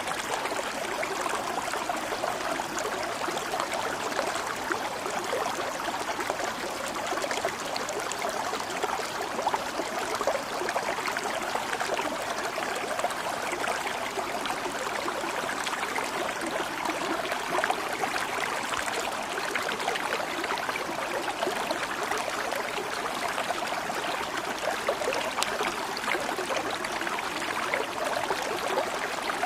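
Water in a small stream flowing steadily, an even, unbroken rush with fine splashing detail.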